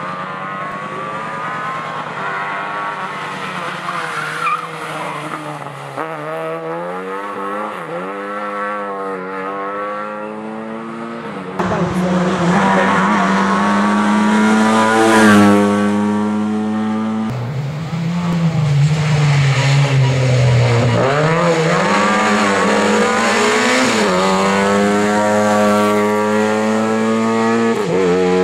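Lada 2105 rally car's four-cylinder engine driven hard, its pitch climbing and dropping again and again through gear changes and lifts off the throttle. The sound jumps abruptly twice.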